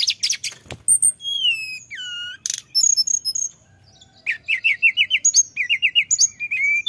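Male hill blue flycatcher singing: rapid high twittering notes and clear downward-gliding whistles, a brief pause a little past halfway, then quick runs of repeated notes.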